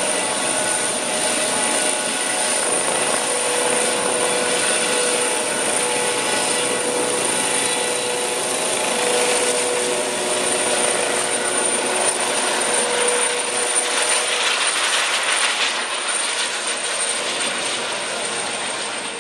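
Airbus Helicopters H135 (EC135 T3H) twin-turbine helicopter lifting off and climbing away overhead: steady rotor and engine noise with a constant high turbine whine, fading out near the end.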